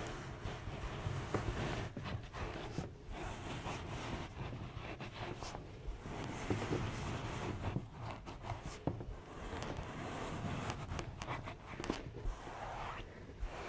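Close-miked rubbing and scratching with scattered small clicks and pops, going on steadily in irregular strokes.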